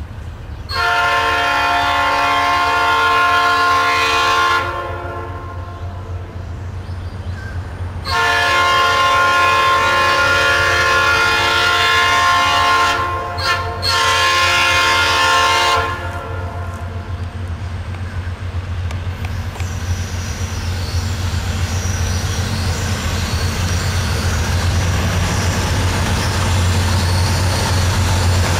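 Norfolk Southern diesel locomotive's air horn sounding for a grade crossing. There is one long chord blast, then after a pause of a few seconds a second long blast that breaks off briefly and resumes for about two seconds more. After the horn, the locomotives' diesel engines and the freight train rumble steadily, growing a little louder as the train draws near.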